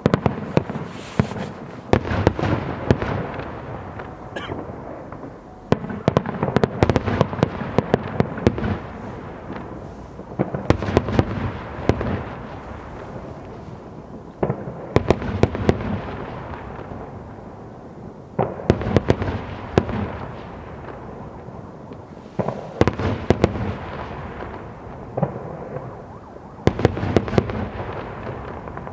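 Aerial fireworks bursting in volleys: a dense cluster of sharp bangs and crackles comes about every four seconds, each lasting two to three seconds and fading before the next salvo.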